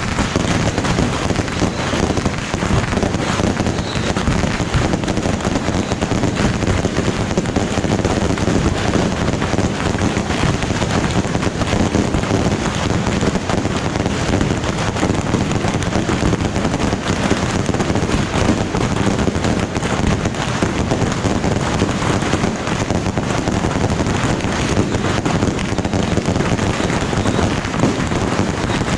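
Fireworks going off in a dense, unbroken crackle, hundreds of small bangs running together without a pause.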